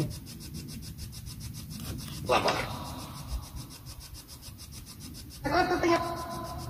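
Spirit box sweeping radio stations: scratchy static with a fast, even ticking, broken by two brief voice-like snippets, the second about five and a half seconds in, trailing off into a steady tone.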